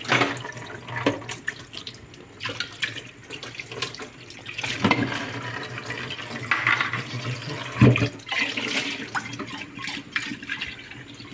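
Kitchen tap running into a sink while dishes and a knife are rinsed, with a few clinks and knocks of dishware against the sink.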